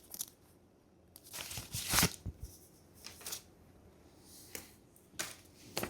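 A few short rustling, scraping noises, as of small objects or packaging being handled, loudest about two seconds in.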